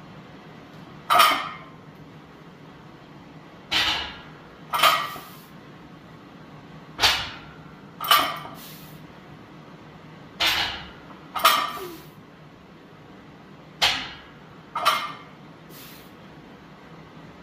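A 135 lb barbell clanking down on a power rack's pin safeties during rack pulls: about nine sharp metallic clanks, each with a short ring, mostly in pairs about a second apart.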